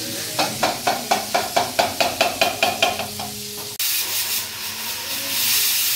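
A quick run of evenly spaced scraping strokes, about five a second, then after an abrupt cut a steady hiss of steam from a pressure cooker on a gas stove, swelling near the end.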